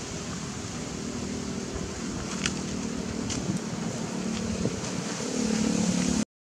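Low steady drone of an engine running in the background, under even outdoor noise, with a couple of faint clicks; the sound cuts out for a moment near the end.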